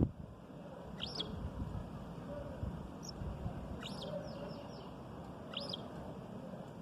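Sparrow chirping: short, high single chirps about once a second, with a quick run of falling notes about four seconds in, over steady low background noise.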